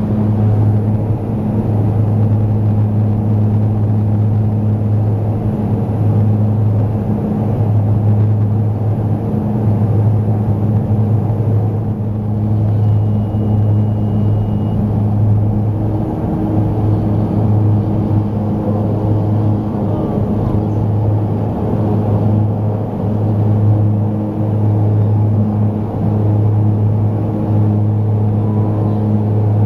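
Engines of a small twin-engine commuter airliner at takeoff power, heard from inside the cabin. It is a loud, steady drone with a strong low hum that carries on through the takeoff run and the first climb after liftoff.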